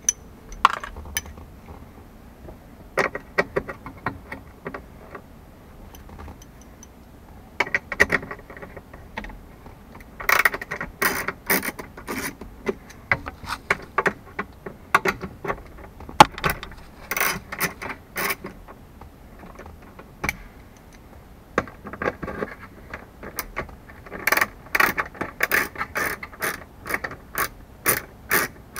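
Ratchet wrench with a 10 mm socket clicking in short runs of rapid clicks, with pauses between runs, as bolts are backed out of a car's dashboard instrument bezel.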